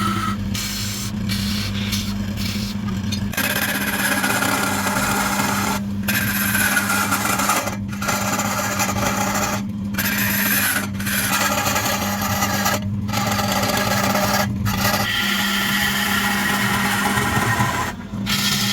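Wood lathe running with a steady motor hum while a turning tool cuts into the spinning wood, giving a rough scraping hiss. The cutting grows stronger a few seconds in and breaks off in short pauses every second or two.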